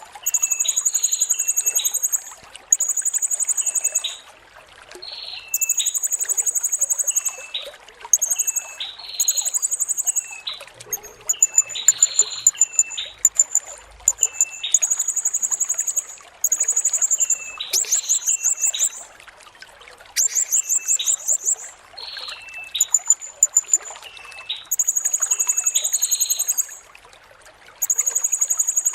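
Blue-crowned hanging parrot (serindit) calling: very high, shrill trilled notes about a second long, repeated every couple of seconds, with short lower chirps between them, over a steady hiss like trickling water.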